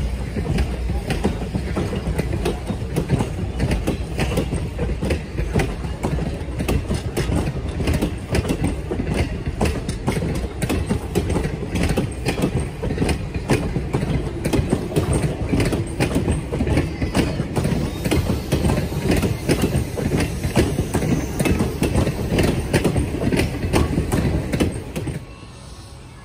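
Passenger train coaches rolling past close by, a steady rumble with the wheels clicking and clacking over rail joints. The sound drops away sharply about a second before the end.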